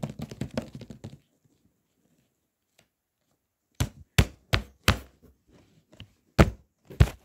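A rattling clatter for about a second, then after a pause a run of sharp knocks and taps on a hard surface, with loud single knocks near the end.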